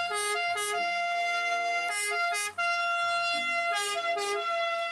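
Italian ambulance two-tone siren sounding as the ambulance drives past. A long, steady higher note is broken every couple of seconds by one or two short lower notes.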